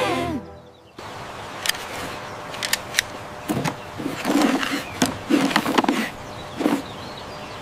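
Cartoon sound effects of litter being picked up and raked: a scatter of light clicks and clatters over a steady hiss, with a few short vocal sounds from the puppies. A brief falling yip comes at the very start.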